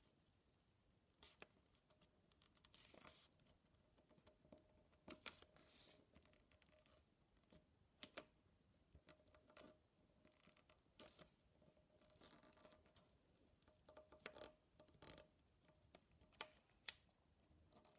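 Faint scratching of a ballpoint pen pressed hard along the lines of a drawing on paper laid over metal foil, tracing the design into the foil in short, irregular strokes with occasional small clicks.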